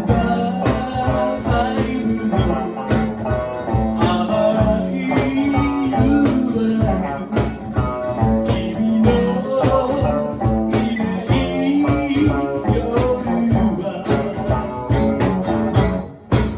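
A band playing a song live: electric or acoustic guitar and drums keeping a steady beat, with a voice singing the melody. The music breaks off briefly near the end.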